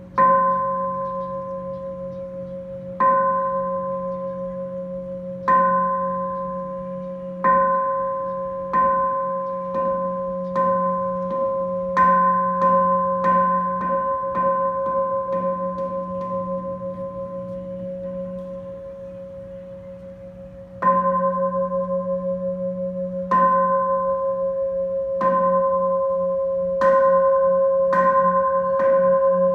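Buddhist temple bell struck over and over, each stroke ringing on with a long hum. The strokes start two to three seconds apart and quicken to about one a second. After a pause of some five seconds they begin again slowly and quicken once more.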